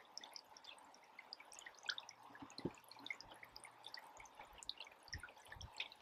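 Faint, scattered drips and small ticks as thick two-part epoxy is poured from a plastic bucket into the bottom of a terracotta pot, with a few soft knocks from handling the bucket.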